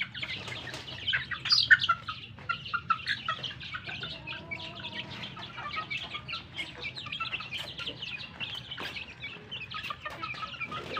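A flock of young native chickens and bantams peeping and clucking as they feed: many short, high chirps overlapping, busiest and loudest in the first two seconds.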